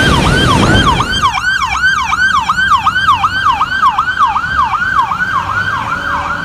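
Police-style electronic siren sounding a fast yelp: a wail that falls in pitch and repeats about three times a second. A rushing hiss fades out in the first second.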